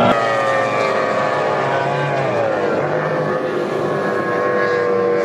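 High-revving outboard engines of racing powerboats whining on the water. About two seconds in, one engine's pitch falls, then it holds steady.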